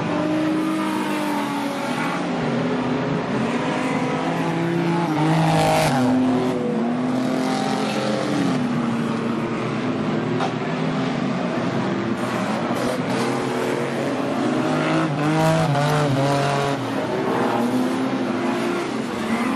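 A pack of stock car engines racing on a dirt oval, several at once, their revs rising and falling as they pass and work through the turns. There is a loud thump about six seconds in.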